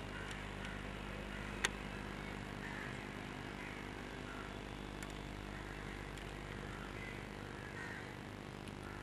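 Quiet outdoor background with a steady low hum and faint scattered sounds. A single sharp click comes about one and a half seconds in.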